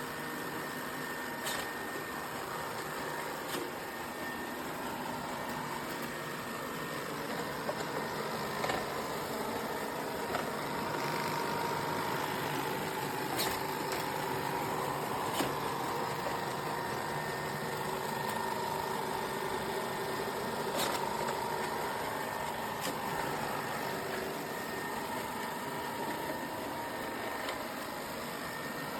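Shark robot vacuum running: a steady motor hum with a faint wavering whine, and occasional sharp clicks.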